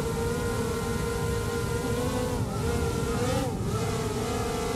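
DJI Mini 4 Pro drone's propellers whining steadily in flight, the pitch dipping and coming back up twice, about two and three and a half seconds in, as it manoeuvres.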